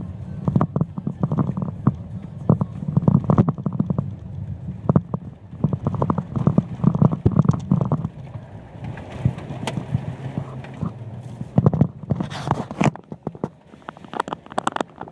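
Jeep driving slowly over a rough, muddy dirt road, heard from inside the cab: a low rumble of engine and tyres with frequent knocks and rattles as it bounces over ruts. About twelve seconds in, a rushing splash of muddy water hits the windshield, and the low rumble then drops away.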